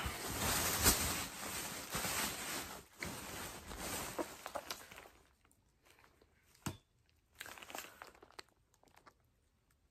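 Plastic packaging crinkling and rustling as items are handled and unwrapped, continuous for about the first five seconds, then in scattered bits with one sharp click about two-thirds of the way through.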